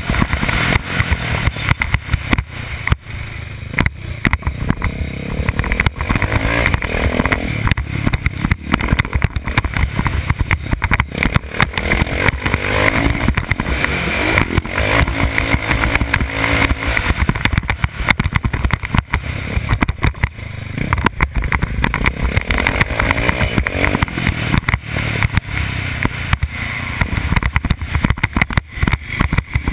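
Motocross dirt bike engine revving up and down as it is ridden hard over a rough dirt track, heard from a helmet-mounted camera with heavy wind buffeting and knocks from the bumps.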